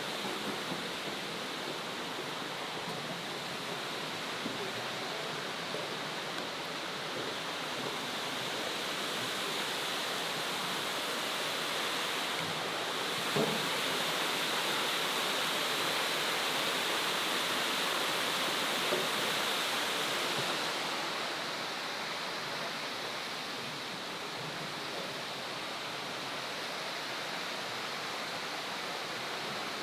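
Steady rushing of a large waterfall, growing a little louder for several seconds in the middle.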